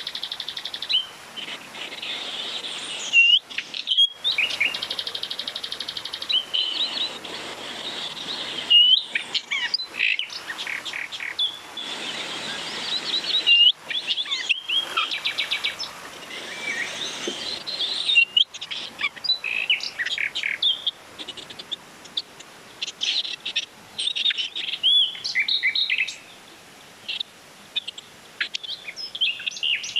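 Several songbirds chirping, whistling and trilling in woodland, calls overlapping throughout. A steady rush of a shallow stream runs under them for the first half, then fades.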